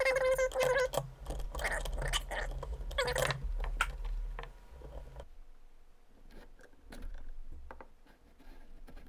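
Stiff metal choke rod on a Yamaha XJ750 carburetor bank squeaking in three spells as it is twisted and worked out through the crusty choke linkage, then light metallic clicks of the parts being handled. A low hum under the squeaks stops suddenly about halfway through.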